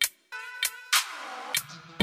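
Background electronic music: the beat drops out into a short break of synth tones with a sweep falling in pitch about halfway, and the beat comes back at the end.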